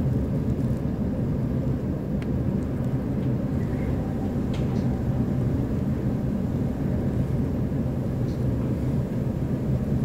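Steady low rumble inside a stopped E531-series electric train car: the car's equipment humming faintly while strong wind buffets the body. A few faint ticks come through.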